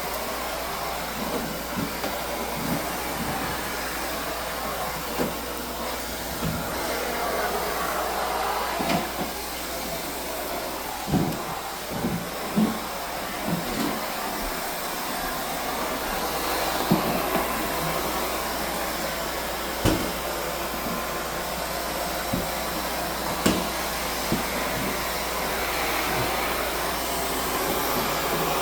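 Central vacuum cleaner running, a steady rushing suction hiss through the hose and floor tool, with occasional short knocks as the tool bumps along the floor.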